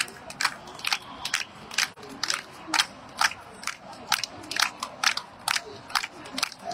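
Hand clapping from ringside spectators in a steady rhythm, about two sharp claps a second.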